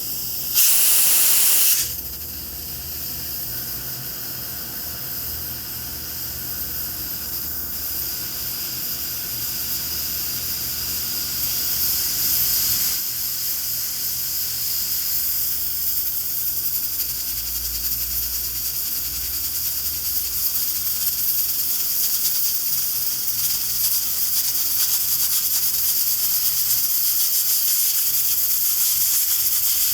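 Pressure cooker venting steam through its valve: a steady hiss, with a louder blast for about a second near the start, the hiss then slowly growing stronger.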